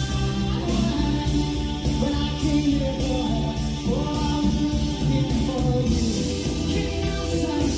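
A song with singing, guitar and bass played back through a Yamaha CA-810 integrated amplifier and loudspeakers.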